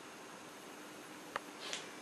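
Quiet steady hiss with a single sharp click a little over a second in, followed shortly by a brief rustling burst.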